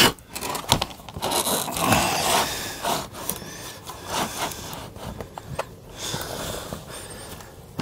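Irregular scraping and rustling with scattered light knocks as a new RV slide ski strip is pushed through into place under the slide-out, with masking tape being handled.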